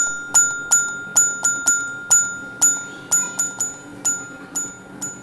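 Countdown timer sound effect: a run of bright, bell-like struck notes, roughly three a second, over one steady held tone, fading out toward the end.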